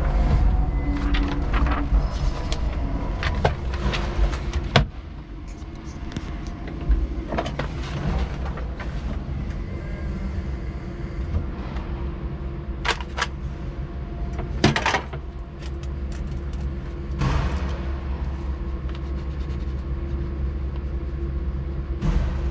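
Electric forklift running from inside its cab: a steady low hum with a constant mid tone, scattered clicks and knocks, louder over the first five seconds while it moves with a load of boxes on the forks, then quieter as it stands still.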